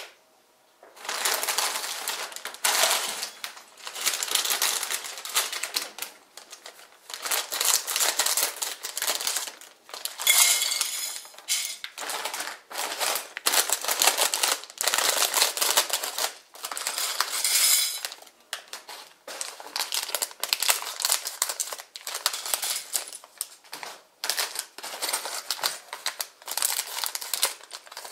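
Clear plastic bags crinkling and rustling as they are handled, with small plastic building bricks rattling and clattering as they are tipped out onto a ceramic plate, in repeated bursts with short pauses.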